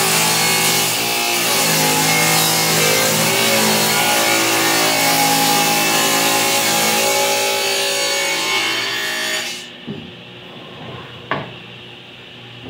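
A table saw ripping a wooden panel: the blade whines and the motor hums as it cuts, until about nine and a half seconds in, when the cut ends and the sound drops off sharply. After that there are two short knocks as the cut pieces are handled on the saw table.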